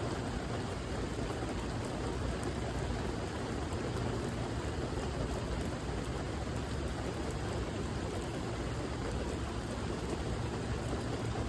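Steady, even rain falling, with no change in intensity.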